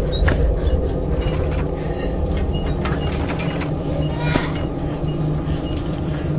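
A steady low rumbling drone with a few faint clicks, typical of a horror film's ambient soundtrack.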